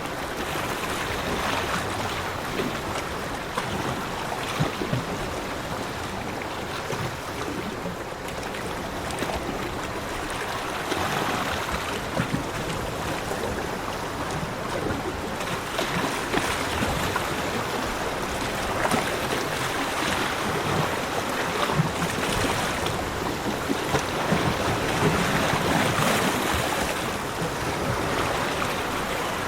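Sea waves washing onto a shore, a steady wash of surf that swells and eases every few seconds.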